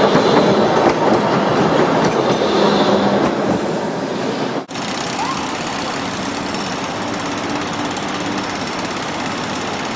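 A tram passing close by, its wheels clattering and rumbling on the rails. About halfway through the sound cuts to steadier street and traffic noise.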